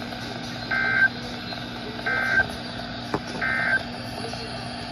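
Three short bursts of warbling data tones, about a second and a third apart, over steady radio hiss: the Emergency Alert System End of Message code sent over NOAA Weather Radio, marking the end of the alert. A brief click sounds between the second and third bursts.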